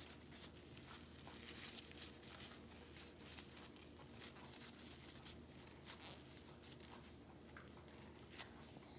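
Faint crinkling and rustling of tissue paper being wound around a dog's nose to wipe away snot, soft scattered clicks over a low steady hum.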